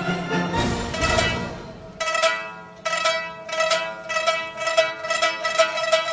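Background music: it changes suddenly about two seconds in to light plucked-string music with quick repeated notes.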